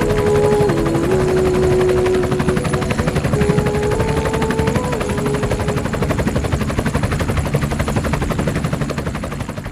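Helicopter rotor and engine noise, a steady rapid chop. It fades down near the end.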